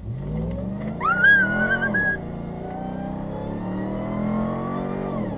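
Off-road vehicle engine revving up and then running steadily under load, with a brief high wavering tone over it about a second in.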